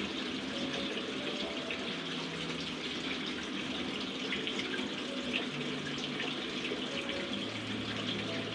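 Water running steadily, with a faint low hum under it.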